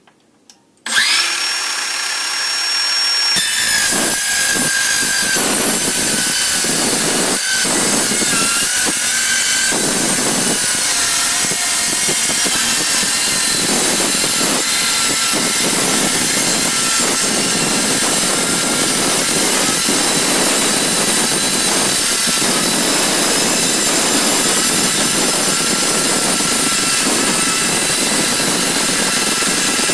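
Makita DCS551Z 18 V cordless metal-cutting circular saw starting up about a second in with a steady high whine, then biting into 8 mm aluminium plate after a couple of seconds and cutting through it steadily and loudly. A few small clicks come just before the start.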